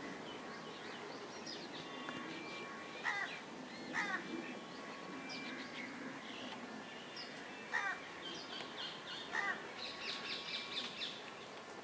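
Birds calling: a handful of short calls falling in pitch, spaced a few seconds apart, over fainter high chirping of smaller birds that thickens near the end.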